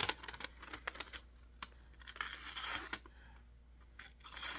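Knife blade slicing through a sheet of paper held in the hand: several short papery hissing cuts with crinkling and small clicks of the paper. The blade cuts through the paper cleanly, a sign of a sharp edge.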